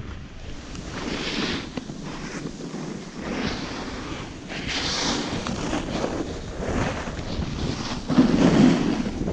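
Snowboard riding down a snowy slope: the board's edges hiss and scrape over the snow in repeated swells as it turns, with wind rushing over the action-camera microphone. A louder low rumble comes near the end.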